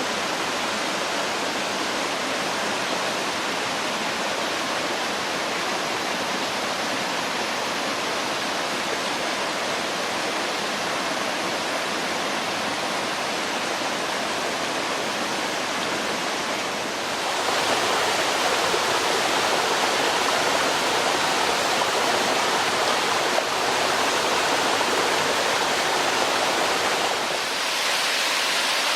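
Mountain valley stream rushing over rocks, a steady wash of water noise that grows louder and brighter about seventeen seconds in and changes again near the end.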